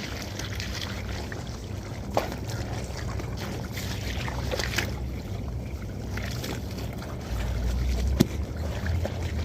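Water running and sloshing as a vacuum cleaner part is washed, with a few short knocks of the part being handled. The low rumble of the water grows louder about seven seconds in.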